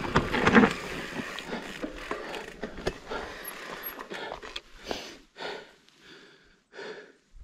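A mountain bike clattering over rough ground, with many sharp clicks and rattles. From about halfway through, a rider breathes hard in quick, heavy breaths roughly every two-thirds of a second.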